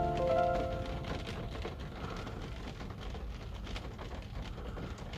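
Rain pattering on a car windshield: a steady hiss dotted with many small drop ticks. Soft music fades out in the first second.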